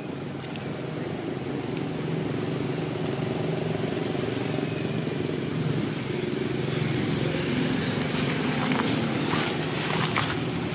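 Steady low motor hum, like an engine running nearby, with a few faint clicks near the end.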